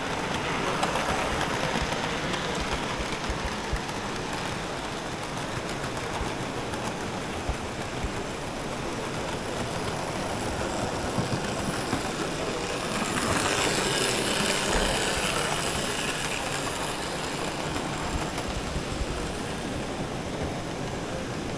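Model trains running along an exhibition layout, a steady rolling whir that swells louder twice, near the start and again about halfway through, as a train passes close.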